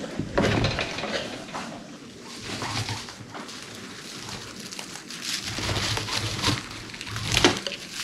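Guinea pigs vocalizing in several short bursts, the loudest near the end.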